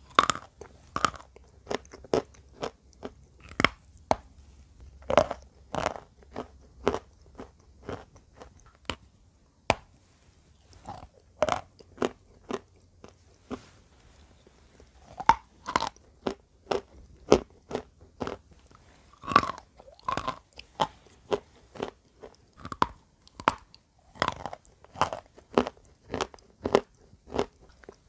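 Close-up crunching and chewing of wet chalk: a steady run of sharp, separate crunches, a few a second, with louder bites now and then.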